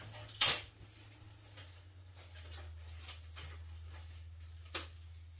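Steady low hum in a small room, with a few brief handling clicks as a gloved hand works paint at the edge of a canvas; the sharpest click comes about half a second in and another near the end.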